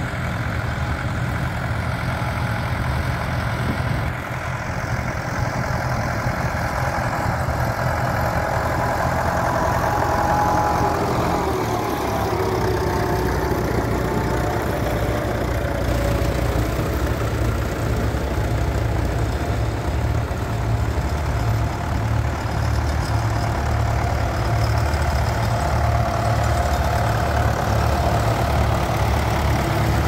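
Vintage tractor engines running steadily under load while pulling ploughs through the field. The engine rumble grows stronger in the second half as one tractor comes close, and one engine note falls about a third of the way through.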